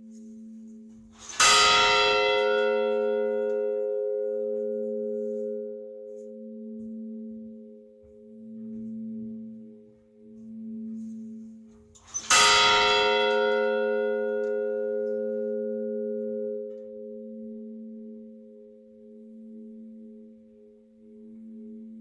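A bell struck twice, about eleven seconds apart, each ring fading slowly. Underneath is a steady low hum that swells and fades about every two seconds.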